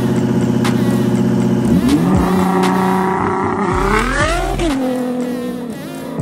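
Twin-turbo Ford V8 of a Shelby Super Snake Sport pickup, with a Nissan GT-R beside it, held steady at the start line, then launching from a dig. The engine pitch climbs several times in quick succession as they accelerate hard away.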